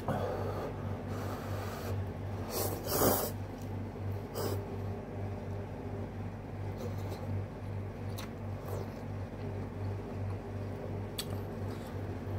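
A person eating noodles with chopsticks: chewing with a few short slurps and mouth noises, the loudest about three seconds in, over a steady low hum.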